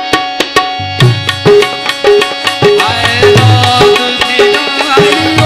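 Harmonium playing held chords while a hand drum comes in: a few sharp strikes, then from about a second in a steady rhythm with deep bass strokes.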